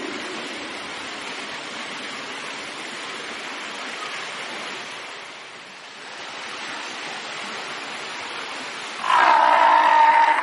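Steady rushing noise of pool water, then about nine seconds in a fur seal gives one loud, pitched call lasting just over a second.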